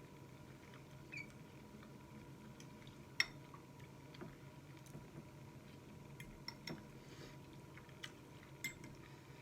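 Fork or spoon clinking against a plate now and then while eating spaghetti, with a handful of separate light clinks; the sharpest comes about three seconds in.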